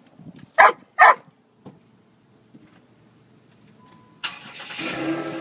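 A dog barks twice in quick succession about half a second and a second in. Then, about four seconds in, a car engine starts suddenly and keeps running.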